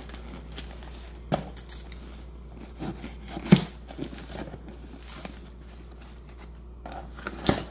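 Cardboard shipping box being opened by hand: packing tape torn and flaps lifted and scraped back. Scattered rustles, scrapes and knocks, the sharpest a snap about three and a half seconds in.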